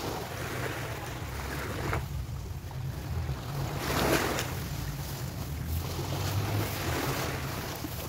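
Wind buffeting the microphone over small waves washing onto a sandy shore, the surf rising and falling in swells, the loudest about four seconds in.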